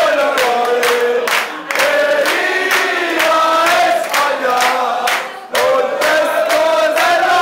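A crowd of men chanting a song together, clapping along in time, with short breaks between phrases.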